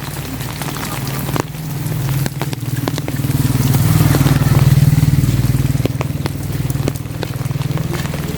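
A vehicle engine drones steadily, growing louder to about halfway through and then easing off, with rain drops ticking against the umbrella.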